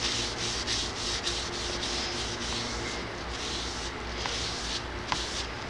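Hand rubbing the wet, soapy steel head of an axe in repeated back-and-forth strokes, scrubbing off its factory shellac coating.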